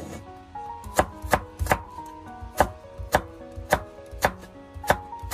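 Crinkle-cut knife chopping stacked raw apple slices into strips on a wooden chopping board: a steady series of crisp knife strokes, about two a second.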